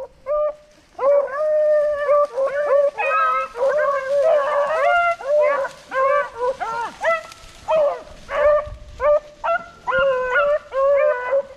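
A pack of beagles baying, several hound voices overlapping in long held bawls and short chops from about a second in. It is the cry of the dogs running a rabbit's track.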